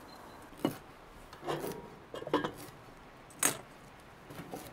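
Spelt grains popping in hot oil in a covered frying pan: a handful of small, sharp pops at irregular intervals over a faint background.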